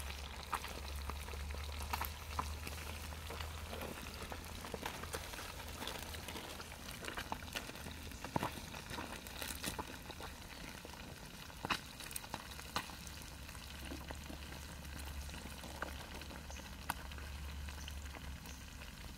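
Pieces of fish deep-frying in a skillet of hot oil: a steady sizzle with scattered sharp pops.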